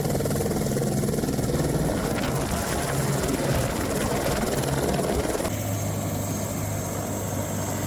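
Helicopter running: a steady, dense engine and rotor noise with a low hum. About five and a half seconds in the sound changes abruptly to a steadier, lower hum.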